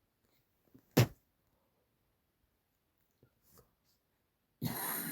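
A single short, sharp cough-like burst about a second in, then near the end a loud, rough, wheezing cough begins.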